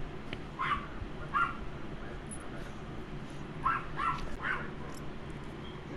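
Blue pit bull puppy giving short, high yips: two spaced apart, then three in quick succession.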